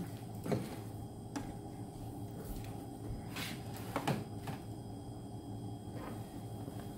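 A few light knocks and clunks of containers being handled and set down on a kitchen counter, over a steady low hum.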